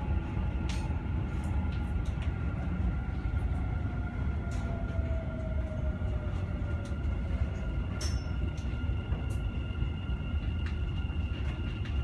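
Dubai Metro train running, heard from inside the car: a steady low rumble with thin steady whines above it and scattered light clicks. A faint whine falls in pitch about five seconds in as the train approaches the station.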